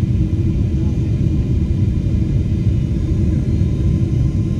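Steady low rumble of an airliner cabin on approach to landing: engine and airflow noise heard from a window seat, with a faint steady hum over it.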